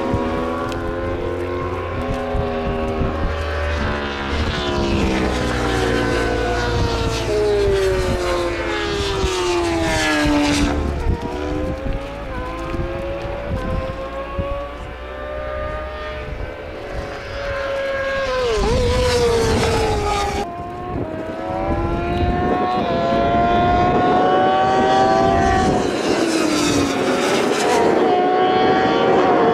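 Racing motorcycles' engines at high revs, several bikes at once, their pitch climbing and dropping as they accelerate, shift and brake.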